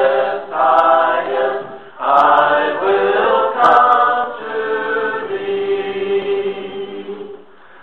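A group of voices singing a worship song, its last phrase ending on a long held note that fades out near the end.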